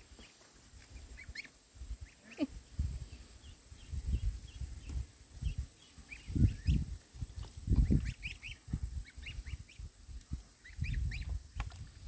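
A brood of ducklings peeping, many short high chirps overlapping throughout. Louder low rumbling bumps come and go, strongest a little past the middle.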